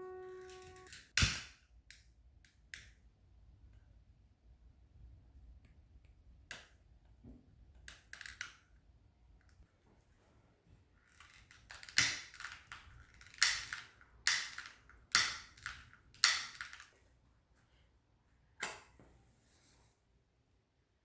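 A scattered series of sharp clicks and short scraping knocks from objects being handled, the loudest five coming in quick succession in the second half.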